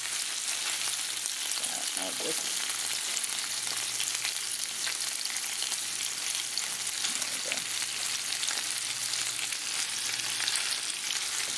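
Bacon strips sizzling steadily in a frying pan over medium heat, with constant fine crackling.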